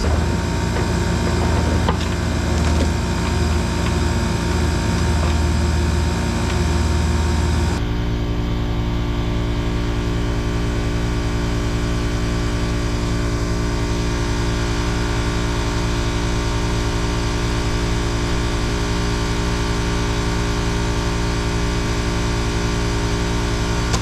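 Heavy machinery engine running steadily at idle. About eight seconds in the sound changes, the rough low rumble dropping away to a smoother, even running note.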